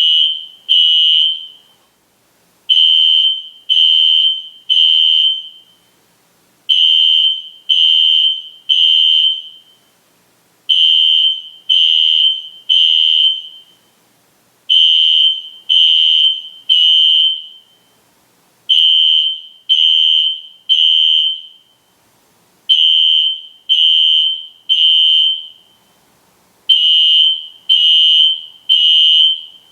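System Sensor SpectrAlert Classic fire alarm horn sounding loudly in the temporal-three pattern: three high-pitched beeps about a second apart, a pause, and the group repeating every four seconds. This is the standard fire evacuation signal.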